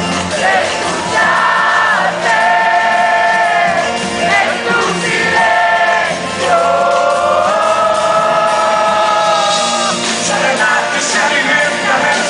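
A rock song playing: a lead melody of long held notes that slide between pitches, over a full band.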